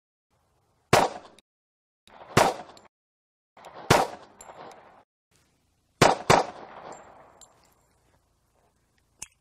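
Five pistol shots from a Nighthawk Custom Bull Commander, a 1911 in .45 ACP: three single shots about a second and a half apart, then two in quick succession, each with a short echo trailing off.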